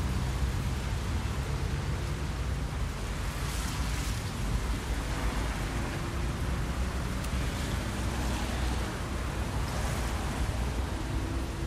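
Steady outdoor noise with a heavy low rumble and a rain-like hiss, and a walker's breathing close to a phone microphone; a few faint breaths stand out about four seconds in and near ten seconds.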